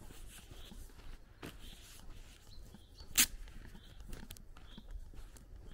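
Footsteps on a dirt road, about two a second, with faint birds chirping in the background. One sharp, loud click a little over three seconds in.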